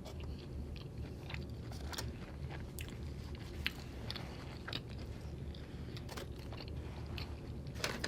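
Close-miked wet chewing of a taco, with irregular small crunches and mouth clicks.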